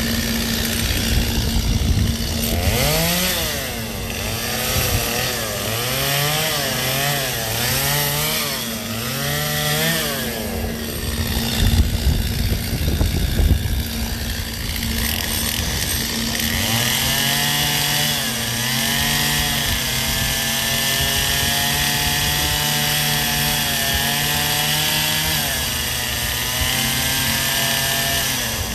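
Two-stroke gas chainsaw carving ice, its engine revving up and down over and over, then held at high speed for about ten seconds with a few short dips.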